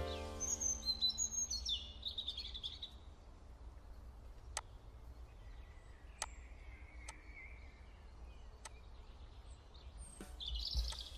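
Birds chirping and tweeting in an ambient background track, over a steady low hum. A held chord fades out over the first two seconds. A few sharp clicks fall in the middle, and the chirping returns near the end.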